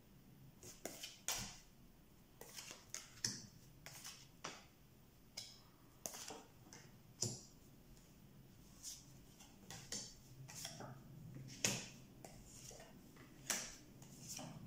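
Tarot cards being dealt from the deck and laid on a wooden table: faint, irregular light taps and slides of card on card and tabletop, roughly one a second.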